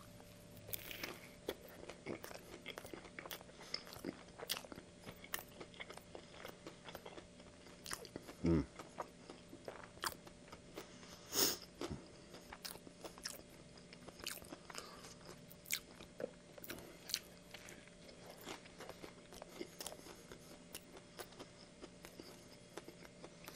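Close-miked chewing of a breaded fried chicken sandwich: soft crunches and wet mouth clicks, scattered and irregular. A brief low voice sound about eight seconds in.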